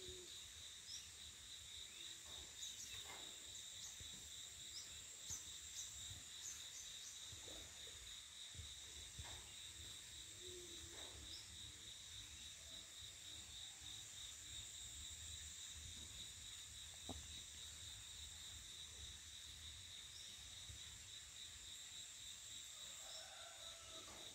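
Faint, steady high-pitched trilling of insects in the surrounding vegetation, a continuous pulsed buzz that never stops. A few short high chirps and clicks sound over it in the first half.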